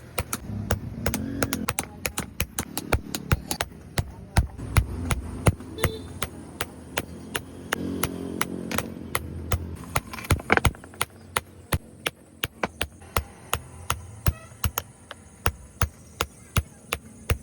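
Repeated sharp strikes on stone, about three a second, as a stone grinder is chipped into shape.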